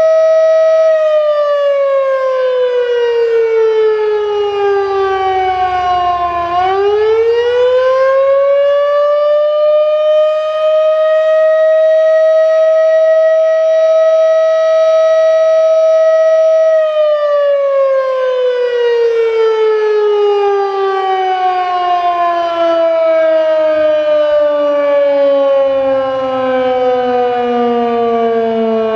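1942 Federal Electric Model 3 outdoor warning siren, a 3-horsepower electric siren, sounding an attack signal with one tone. Its steady note starts to drop in pitch about a second in and bottoms out after about six seconds, then climbs back up and holds for several seconds. About two-thirds of the way through it begins a long, slow fall in pitch as the rotor winds down.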